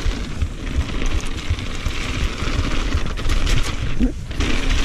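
Mountain bike riding fast down a rocky gravel trail: tyres rumbling over stones and the bike rattling with a rapid run of clattering knocks, with wind buffeting the microphone.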